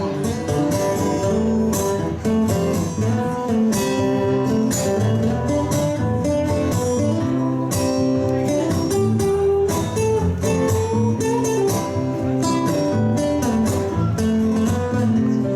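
Live band playing an instrumental break, led by guitar, with a steady beat.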